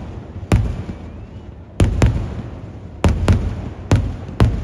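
Kerala temple-festival fireworks: seven loud firework blasts in an uneven sequence, some in close pairs, each followed by a rumbling echo.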